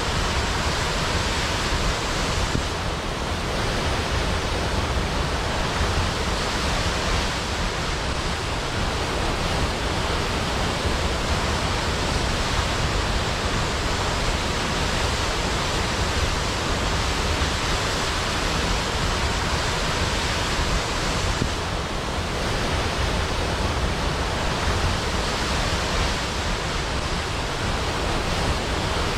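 Large waterfall falling into a pool: a steady, loud rush of water.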